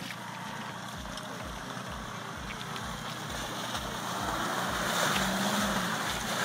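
Mercedes G-Class off-road vehicle's engine running as it crawls through deep mud, getting louder from about halfway through as it comes closer.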